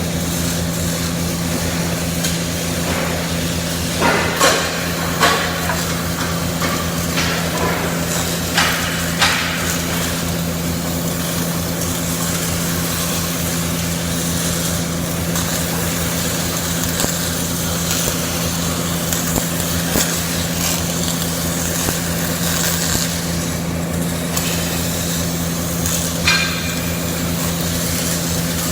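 Steady machine hum with a few sharp knocks: a cluster about four to five seconds in, two more around nine seconds, and one near the end.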